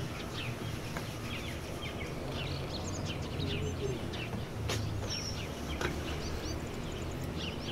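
Small birds chirping over and over in short quick notes, over a steady low background rumble, with a few sharp knocks, the loudest about six seconds in.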